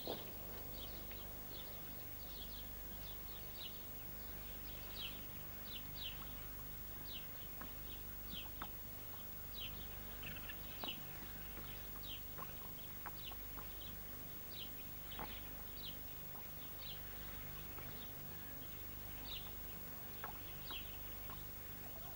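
Small birds chirping in quick, irregular short calls, faint and high-pitched, over a low steady hum.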